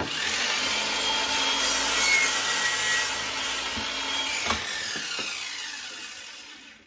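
Vonhaus 20V Max cordless mitre saw starting up and cutting through a wooden board. The motor then spins down, its whine falling in pitch and fading out near the end.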